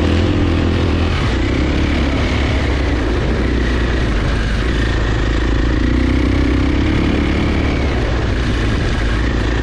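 KTM 500 dirt bike's single-cylinder four-stroke engine running steadily while riding, heard loud and close. The noise cuts off suddenly at the very end.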